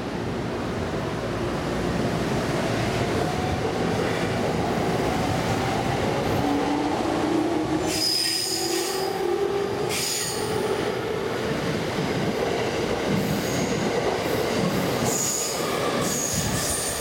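JR East 209 series 500 subseries electric commuter train accelerating away from a platform: the traction inverter and motors whine, rising steadily in pitch as it gathers speed, over the rumble of wheels on rail. Brief high-pitched squeals come about eight and ten seconds in.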